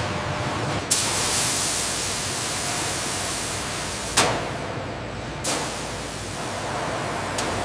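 A steady hissing noise, like spraying air, that jumps abruptly in level about a second in, with sharp clicks at about four seconds and near the end.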